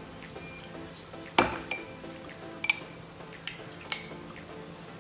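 A spoon scooping ice cream from its container, with about five sharp clinks and scrapes. The loudest clink comes about a second and a half in.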